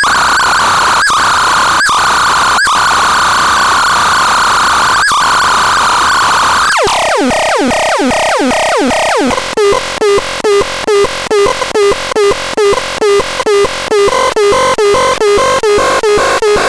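WAXISON B 603 electronic siren sounding a steady high tone with a few sharp clicks. About seven seconds in it switches to a string of quick falling sweeps, then to a fast, even pulsing tone of about three to four beats a second.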